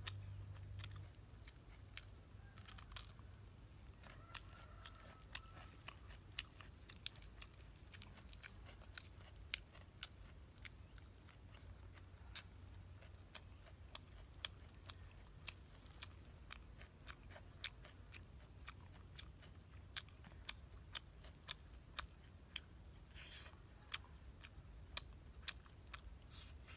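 A person chewing and biting braised egg and chicken close to the microphone: short wet mouth clicks and smacks, irregular at about one or two a second, over a faint low hum.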